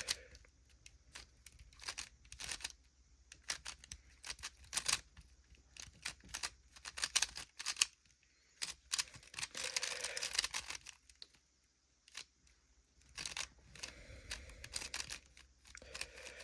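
Rubik's cube being turned fast in a speed solve: quick runs of plastic clicks and rattles as the layers snap round, with a dense flurry of turning about ten seconds in.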